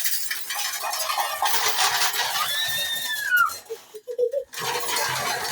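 Steel kitchen utensils clattering and scraping against each other. About two and a half seconds in, one piece gives a ringing metallic tone that rises and then falls in pitch, and a couple of sharp knocks follow.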